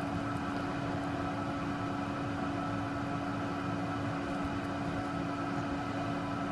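Steady machine hum with one constant low tone, unchanging throughout, with a few faint small clicks from jewellery being handled.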